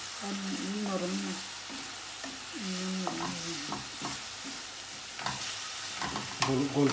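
Onions sizzling in hot oil in an aluminium frying pan, stirred with a wooden spatula that scrapes and taps against the pan. A low voice sounds now and then in the background.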